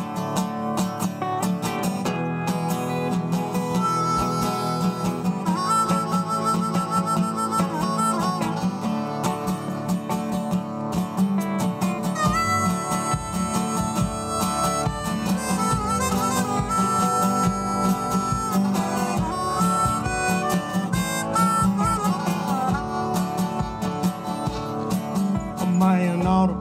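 Live band playing an instrumental passage: a harmonica carries the melody in held and bending notes over steadily strummed acoustic guitar chords.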